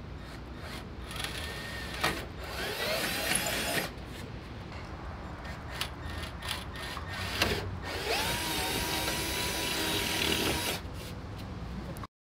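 Power drill run in two bursts of two to three seconds each, its motor spinning up to a steady whine, with scattered clicks and knocks in between. The sound cuts off abruptly near the end.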